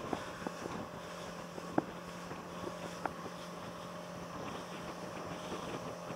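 Rigid inflatable boat under way at speed: the outboard motor running at a steady pitch, with wind on the microphone, rushing spray and a few sharp knocks from the hull hitting the water.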